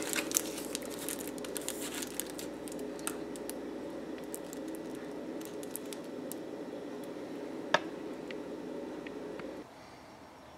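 Aluminium foil crinkling and a knife cutting through a foil-wrapped flatbread roll, as scattered crackles mostly in the first few seconds, with a single sharp click near 8 seconds. Under it runs a steady low hum that stops abruptly near the end.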